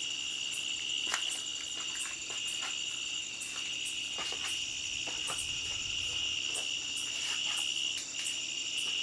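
Crickets trilling steadily in a chorus, with a few faint scattered clicks.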